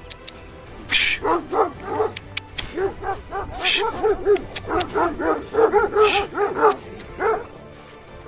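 Kangal shepherd dogs barking in a rapid run of deep barks, three or four a second, as they chase a herd of horses. Three short hissing sounds come between the barks.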